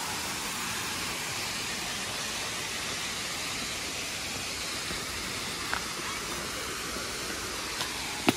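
Steady rushing of falling water from the cascades of a waterfall, with a few faint taps in the second half.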